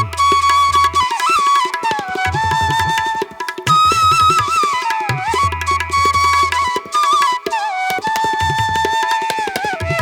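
Instrumental background music: a flute melody gliding between held notes over tabla drumming.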